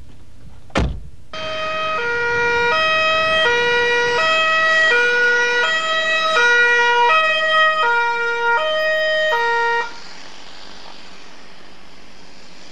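Italian police car's two-tone siren, on a Polizia Alfa Romeo 155, alternating steadily between a higher and a lower note about every 0.7 seconds for some eight seconds, then cutting off suddenly. A sharp click comes just before the siren starts.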